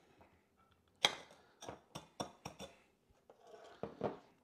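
A glass tumbler and a small ceramic plate clinking and tapping against each other and the countertop. A sharp clink comes about a second in, followed by a quick run of lighter taps and a few more near the end as the glass is set down.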